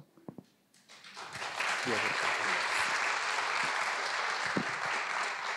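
Congregation applauding, swelling up about a second in and then holding steady.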